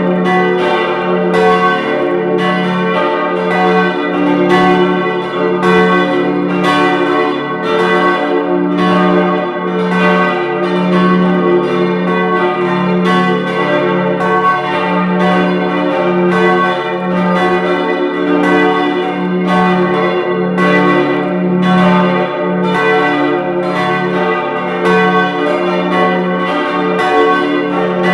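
Full peal of four church bells tuned d', f♯', a', b', all ringing together in a continuous stream of overlapping strikes with long sustained ringing tones.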